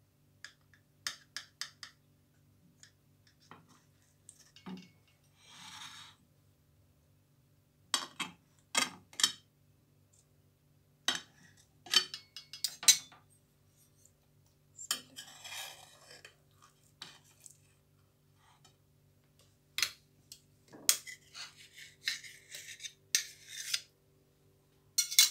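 Knife clinking and scraping against a serving tray and a china plate as a flan is cut and a slice lifted out: scattered groups of sharp taps and clicks with a few short scrapes.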